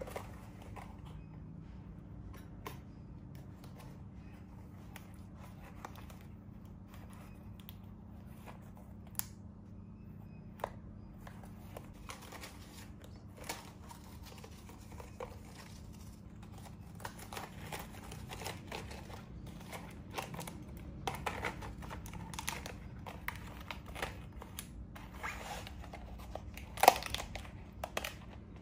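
Pleated paper lampshade being handled and fanned open: paper rustling and crinkling with scattered clicks, busier in the second half, and one sharp tap near the end.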